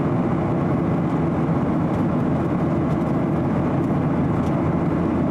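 Steady cabin noise inside a Boeing 737-800 in flight: the hum of its CFM56 turbofan engines and the rush of air over the fuselage, heard from a window seat.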